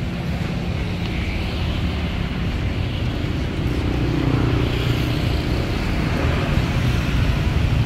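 A steady low mechanical rumble with a held hum, like a motor running in the background.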